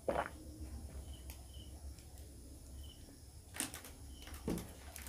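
Drinking juice from a glass bottle: a swallow near the start, then a sharp click about three and a half seconds in as the bottle is set down, and a soft thump a second later. Faint short high chirps repeat in the background about every second and a half.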